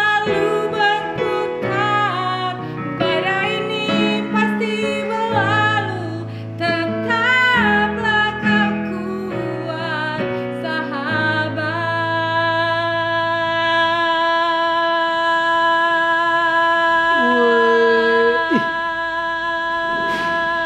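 A woman singing a pop ballad with electronic keyboard accompaniment, the keyboard holding low chords under her melody. About twelve seconds in she holds one long high note until the end, and the keyboard bass drops out a couple of seconds after she starts it.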